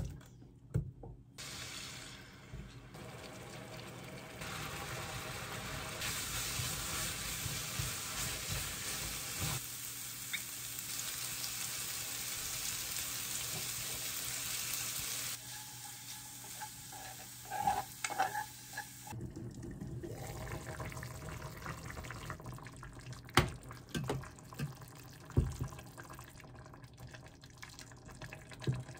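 Julienned radish stir-frying in a pan as broth is poured in, a steady sizzling hiss for about ten seconds. Later come scattered clinks and knocks of utensils against cookware.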